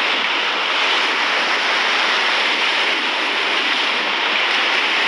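Steady rush of fast-flowing river water, the white-water rapids around a rafting boat.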